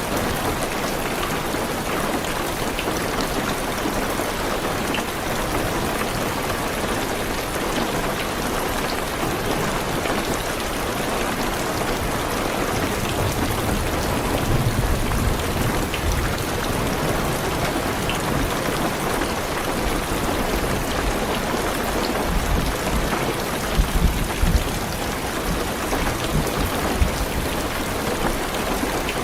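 Heavy rain drumming steadily on a car's roof and windows, heard from inside the car. A few brief low rumbles come through about halfway and again about four-fifths of the way in.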